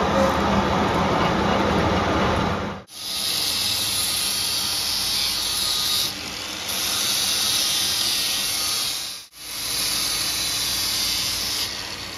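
Metal lathe running as a cutting tool turns the ball end of a tie rod stud, with a steady hum. About three seconds in it gives way to an angle grinder with a sanding disc pressed on the spinning ball, a steady high hiss of abrasion on metal that briefly drops out near the end.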